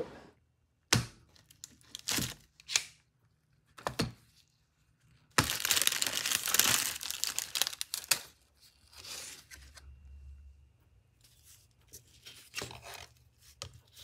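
Plastic wrap being pulled off a glued-up wood strip and crumpled, a loud crinkling tear lasting about two and a half seconds near the middle. Before it come a few sharp clicks and knocks, and after it scattered small handling sounds.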